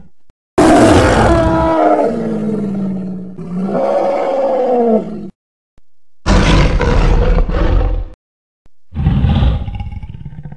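Dinosaur roar sound effects for an abelisaurid theropod: one long roar whose pitch falls, starting about half a second in, then two shorter roars, each cut off by silence.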